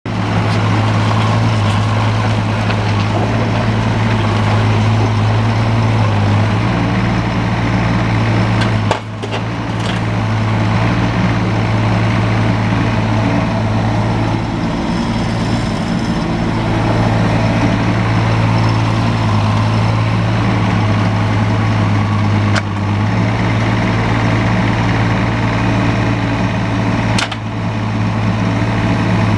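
Volvo EC15B mini excavator's diesel engine running steadily while the boom and arm are worked. There are a few short knocks with brief dips in the engine sound, about 9, 22 and 27 seconds in.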